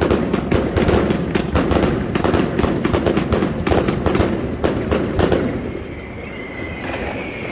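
Fireworks going off in a rapid, dense run of sharp cracks and bangs, like a string of firecrackers. They thin out and fade about six seconds in.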